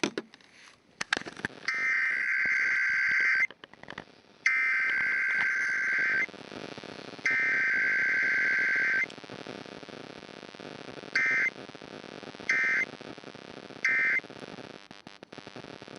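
Emergency Alert System SAME digital header: three buzzy data bursts, each under two seconds and about a second apart, followed by three short end-of-message bursts. No long attention tone comes between them.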